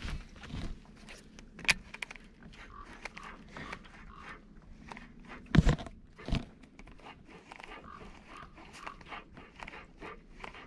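Baitcasting fishing reel cranked on a retrieve, a run of quick small clicks and ticks. Two dull knocks just past the middle are the loudest sounds.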